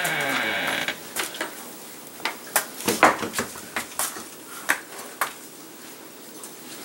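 A short falling tone cuts off abruptly about a second in. Then a pony nosing and rummaging through things in a plastic wheelbarrow makes a string of irregular knocks and clatters.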